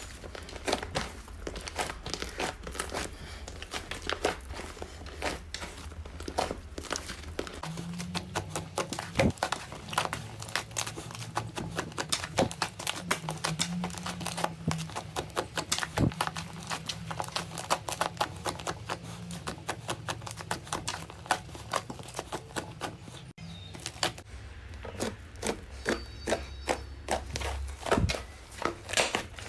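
Slime being squeezed and worked by hand, giving a dense run of wet crackles, clicks and pops from trapped air. A low steady hum runs underneath, and the sound breaks off briefly about 23 seconds in, where one clip gives way to the next.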